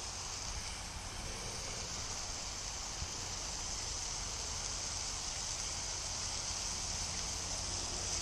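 Lamb burger sizzling steadily in a frying pan over a small wood-burning camping stove, a constant high hiss. Underneath runs a steady low rumble of distant motorway traffic.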